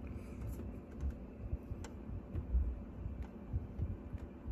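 Faint, irregular clicks and low bumps as a fingertip presses and holds a button on a Brother laser printer's control panel.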